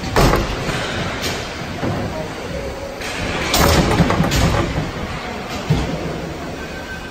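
Ice hockey play in a rink: several sharp knocks and thuds of puck, sticks and players striking the boards, over a steady noisy arena background.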